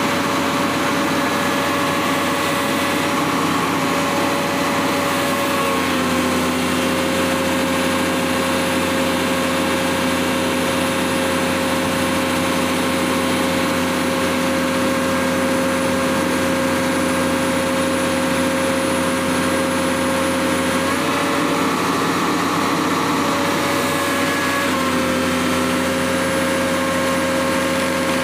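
Komatsu PC200-8MO excavator's diesel engine running steadily while its blow-by (crankcase) pressure is read on a water U-tube manometer. Its pitch steps slightly down a few seconds in, rises briefly later, then drops back near the end.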